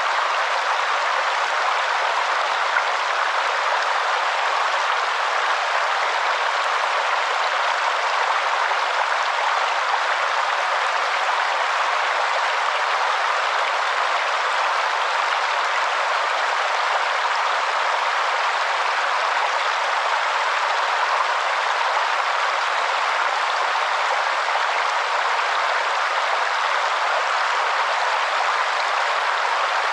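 Waterfall: a steady, unbroken rush of falling water, even and unchanging, with little deep rumble.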